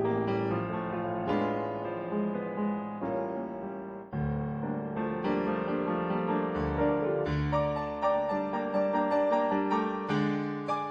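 Solo piano music, a busy melody over a low bass line with notes struck in quick succession.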